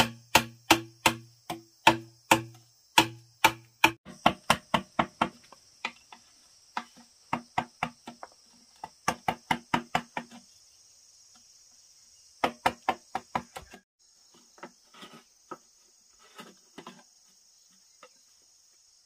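Wooden mallet striking the back of a knife blade to chisel a hole in a green bamboo pole: sharp, hollow-ringing knocks about three a second, then faster, a pause, a quick cluster of blows and lighter taps near the end. A steady high insect buzz runs underneath.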